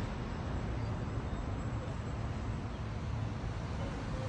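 Steady low rumble of city traffic with no distinct events.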